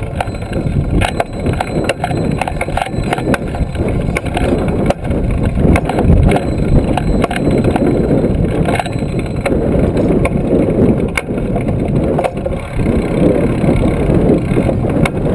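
Trail-a-bike rolling along, with steady wind rumble on the handlebar-mounted camera's microphone and frequent small clicks and rattles from the bike.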